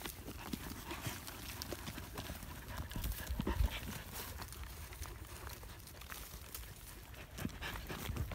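Dogs digging at a mouse burrow in dry, hard clay soil: paws scraping and clods of earth knocking and crumbling in irregular clicks, with a louder thump about three and a half seconds in.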